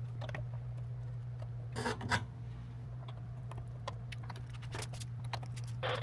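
Light handling noises from panel work: a brief scrape about two seconds in and scattered light clicks, over a steady low hum.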